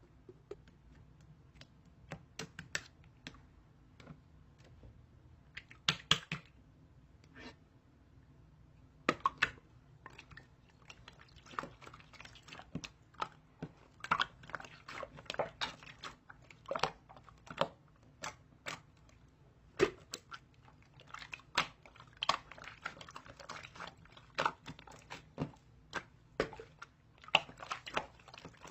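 Irregular crisp crunching and clicking, like chewing something hard: a few spaced crunches at first, then a quick run of them from about ten seconds in.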